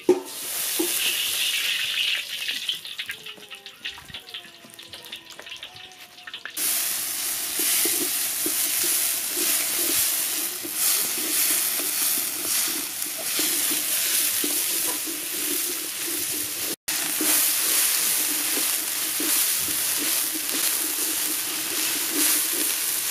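Sliced onions frying in hot oil in a metal wok, stirred with a wooden spoon. The sizzle is softer for the first six seconds, then jumps loud and stays steady.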